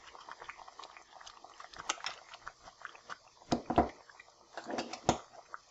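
Tomato stew cooking in oil in a pan, faintly sizzling with scattered pops and crackles, a few of them louder around the middle.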